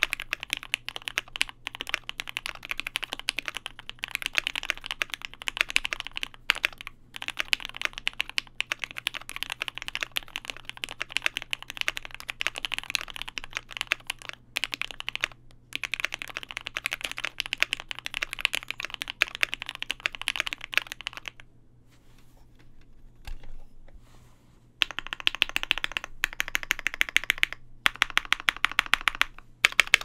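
Typing on a KBD75 V3.1 mechanical keyboard with lubed Gateron Ink linear switches, a polycarbonate plate and GMK keycaps: fast, dense key clacks. About two-thirds of the way in the typing stops for about three seconds, then single keys are struck one after another in an even rhythm.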